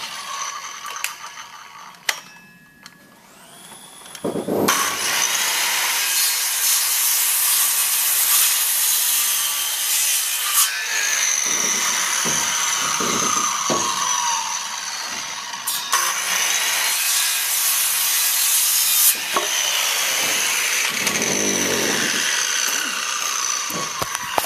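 A power saw spins up about four seconds in and then cuts through wood, loud and continuous with a few brief dips. Its pitch sags at times as the blade loads up in the cut.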